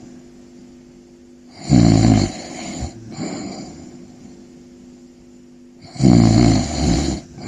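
Snoring: two loud, low snores about four seconds apart, each followed by a softer breath out.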